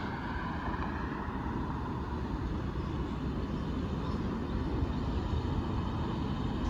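Steady low rumble of distant vehicles, growing a little louder near the end.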